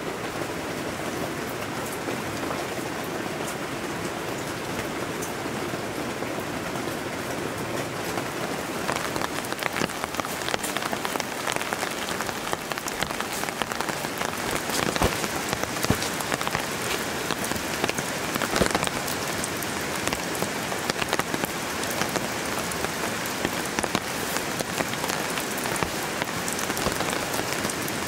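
Steady rain falling, with many single raindrops ticking close by; the drops become more distinct from about eight seconds in.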